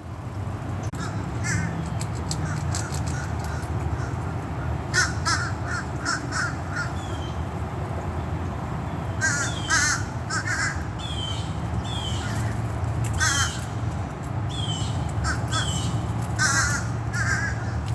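Birds calling in short runs of several repeated calls, a fresh run every few seconds, over a steady low rumble.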